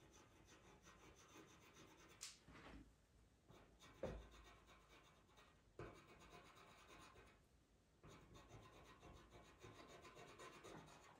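Faint scratching of a pastel pencil stroking over Pastelmat paper in repeated short strokes, with a few light knocks.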